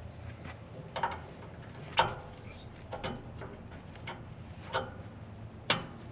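Sharp clicks and taps about once a second from handling and cleaning the hydraulic hose quick-disconnect couplings, over a low steady hum.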